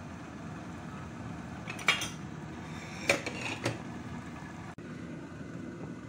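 Metal ladle clinking against the side of a white soup pot a few times: a sharp clink about two seconds in, then two more about half a second apart a second later. A steady low hum runs underneath.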